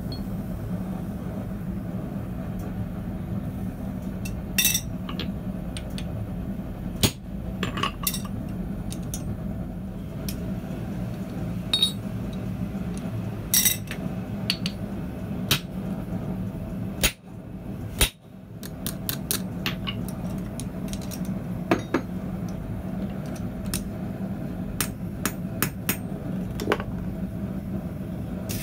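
Blacksmith's hand hammer striking red-hot steel bar stock on a steel bending jig, in scattered single metallic blows one to a few seconds apart, over a steady low hum.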